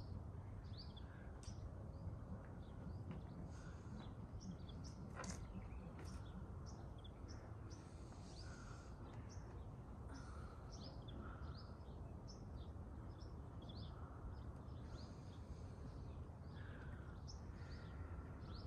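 Wild birds chirping in the trees: many short, scattered calls over a faint, steady low background noise.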